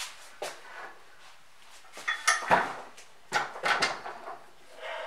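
Metal clanking and knocking as a Kity 652 mortiser is lifted, tipped over and set down on a wooden workbench, its loose levers and fittings rattling. The clatter comes in several bursts, the loudest around two and a half and three and a half seconds in, with a shorter rattle near the end.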